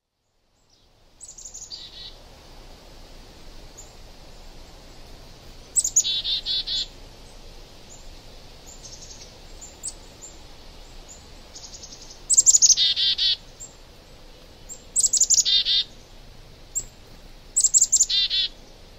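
A songbird singing: about five short songs a few seconds apart, each a quick run of high notes dropping into a lower trill, over a faint steady background hiss.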